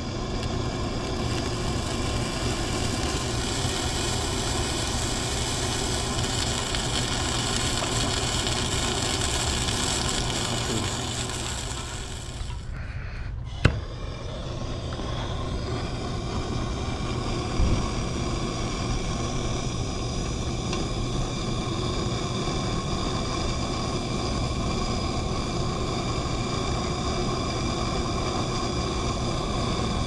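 Bernzomatic hand torch burning with a steady hiss, heating a copper pipe cap for sweat-soldering. About twelve seconds in the flame noise dips, a sharp click sounds, and the torch then burns steadily again.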